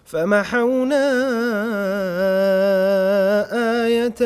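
A man reciting the Qur'an in melodic tajweed style, drawing out one long vowel with ornamented, wavering pitch. The note breaks briefly near the end.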